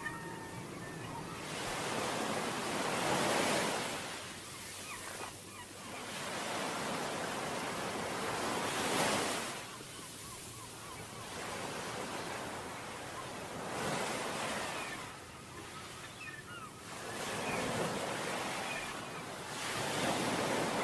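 Sea waves breaking and washing up a beach. The surf swells and falls back in slow surges about every five or six seconds.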